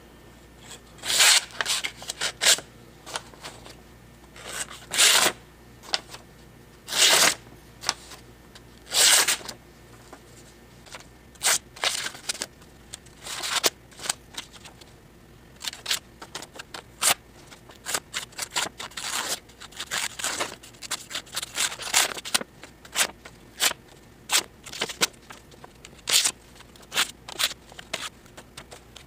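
A freshly sharpened cheap survival knife slicing through scratch paper in a paper cut test of its edge: about five separate slicing swishes in the first ten seconds, then many short, quick cuts and paper crackles.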